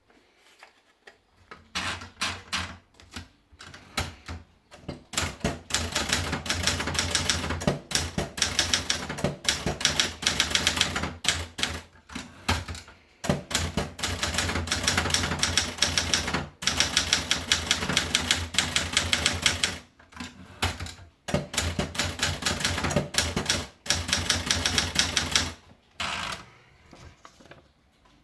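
Adler Gabriele 25 manual portable typewriter being typed on: fast runs of keystrokes starting about two seconds in, broken by a few short pauses, stopping shortly before the end.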